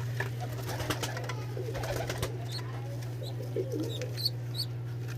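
Domestic pigeons cooing softly a couple of times, with a few faint high chirps and a steady low hum underneath.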